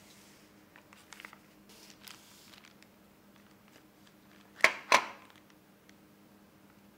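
Faint rustles and light handling noises, then two sharp knocks about a third of a second apart as a camera battery charger is set down and pressed onto a table.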